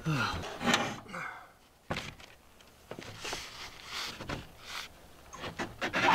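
A sheet of three-quarter-inch plywood knocking and scraping against a plywood deck as it is handled on edge, with scattered thuds, a sharp knock about two seconds in, and shuffling footsteps. A brief voice sounds at the start.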